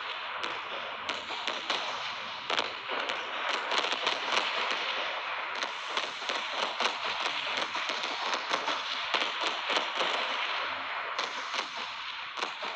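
Firecrackers and fireworks going off in quick succession: a dense crackling hiss peppered with many sharp pops, none much louder than the rest.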